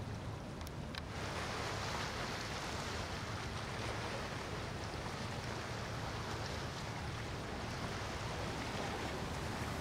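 Large motor yacht passing at cruising speed: the steady rush of its bow wave and wake along the hull over a low, even rumble, swelling about a second in.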